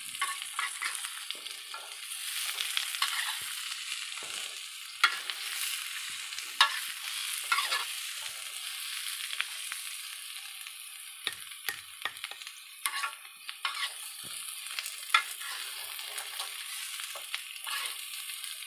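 Tempe pieces with shallots and garlic sizzling in a small black wok as a metal spatula stirs them. The steady sizzle is broken about a dozen times, at irregular intervals, by sharp scrapes and clinks of the spatula against the pan.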